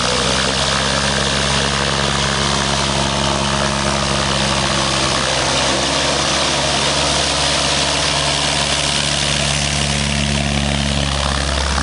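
Cessna 172 light plane's piston engine and propeller running steadily at low taxiing power as the aircraft rolls past close by.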